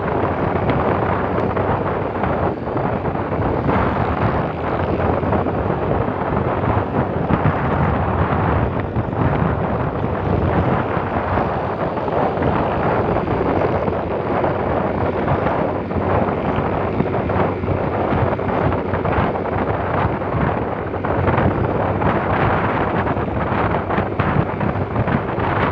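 Steady loud rush of wind buffeting the microphone on a moving motorbike, with the bike's engine and road noise underneath.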